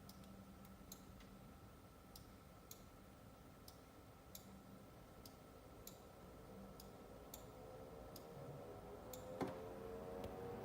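Faint, irregular ticking over a low steady hum, then a sharp click about nine seconds in as the Cooler Master MasterLiquid ML240L RGB liquid CPU cooler starts spinning up, its whine rising in pitch and getting louder toward the end.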